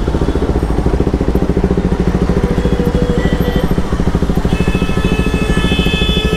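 Bajaj Pulsar RS200's single-cylinder engine idling, a steady rapid low pulsing.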